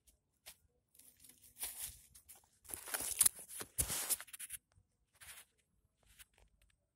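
Irregular rustling and scraping, with a sharp thump about four seconds in, as a hooked fish is hauled in and handled.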